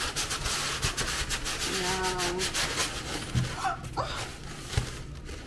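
Cardboard box being pulled open by hand: the flaps scrape and tear in a dense rustling stretch, followed by a couple of dull knocks.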